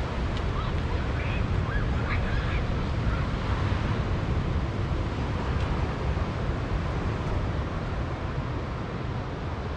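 Steady wind rumbling on the microphone over the even rush of surf.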